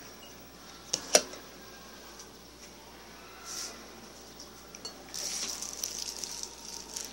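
Two sharp knocks or clinks close together about a second in, then a stretch of light clattering and rattling from about five seconds in.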